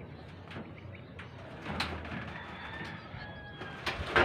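Corrugated roofing sheets handled by hand: a few light knocks, then a loud bang near the end as a sheet is pressed or dropped into place. Faint bird calls in the background.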